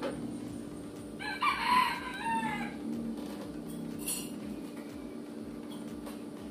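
A rooster crowing once, about a second and a half long, starting a little over a second in, over a steady low hum.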